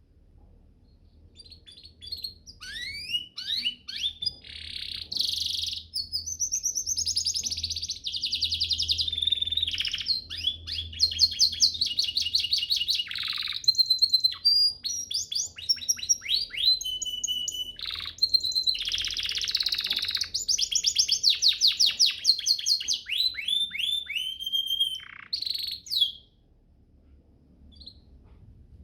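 Domestic canary singing a long, varied song of rapid trills, rolls and fast runs of falling whistled notes. It stops near the end, pauses briefly, and starts up again.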